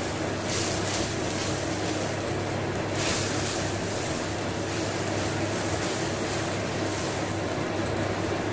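Kitchen fan running with a steady hum and rush of air, over the sizzle of a ground spice paste frying in oil.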